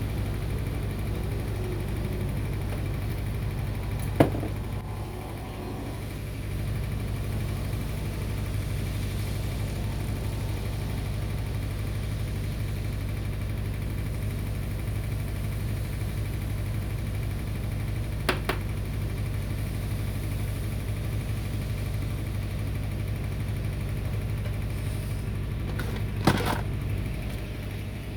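Steady low machine hum, with three sharp clicks: about four seconds in, about eighteen seconds in, and near the end.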